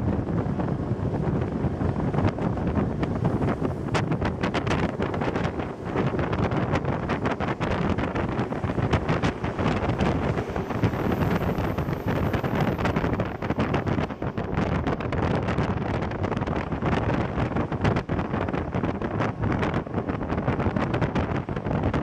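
Wind rushing over the microphone with the steady rumble of a moving train, scattered with short sharp clicks.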